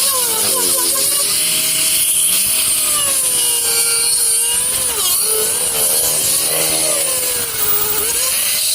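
Handheld power tool cutting into wood: a motor whine that slowly rises and falls in pitch as the load changes, over a steady grinding hiss.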